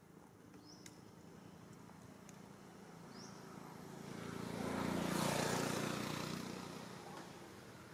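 A motor vehicle driving past off-camera. Its engine sound grows steadily louder, peaks about five seconds in, and then fades away.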